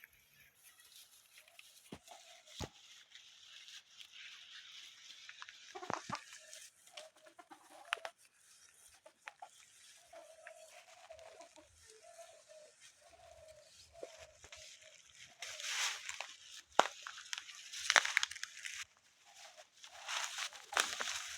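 Chickens clucking in a run of short repeated notes, with loud bursts of rustling noise in the last few seconds.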